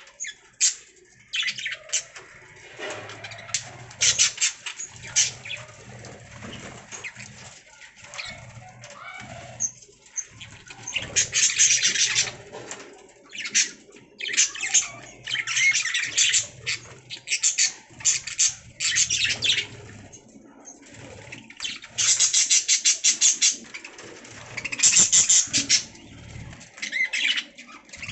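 Budgerigars chirping and warbling, with loud bursts of fast, rapidly repeated chirps every few seconds and quieter chatter between them.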